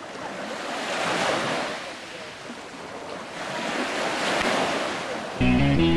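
Sea waves washing in, the surf swelling twice. Guitar music starts abruptly near the end.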